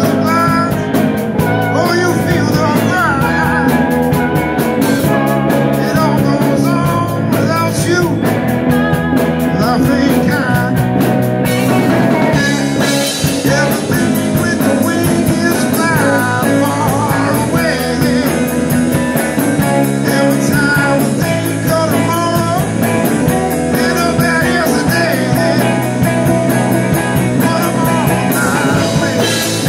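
Rock band playing: two electric guitars, one of them a Telecaster-style guitar, over electric bass and a drum kit.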